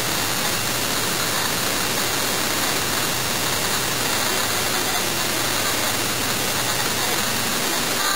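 A steady, even hiss, like static, at an unchanging level with no distinct events in it.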